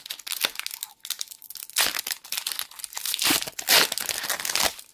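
Pokémon booster pack's foil wrapper being torn open and crinkled by hand: a run of irregular crackles, loudest about two seconds in and again near four seconds.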